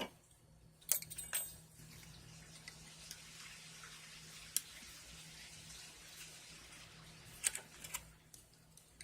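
Small sharp metal clicks and scrapes as pointed tools pick at the retaining pin of a Craftsman ratchet head: a couple about a second in, one in the middle, a few near the end. Under them runs a faint steady hiss.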